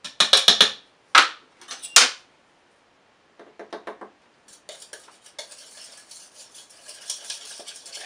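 A tablespoon knocks against the rim of a mixing bowl in a few quick clicks, with one sharper knock at about a second. From about halfway through, a small wire whisk beats an egg, sugar and flour batter in the bowl with a rapid, steady clicking.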